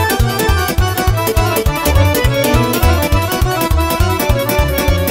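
Instrumental break of Moldovan-style Romanian folk party music: a fast melody over a steady, quick bass beat.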